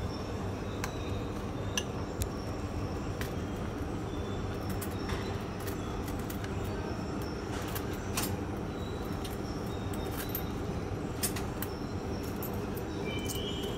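Steady low hum of a metro station interior, with scattered light clicks and clinks and a few faint high tones near the end.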